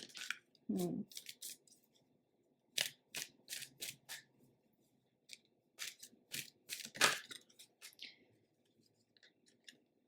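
Lightseers tarot cards being handled: an irregular run of short, sharp card snaps and slides, with a brief low hum about a second in.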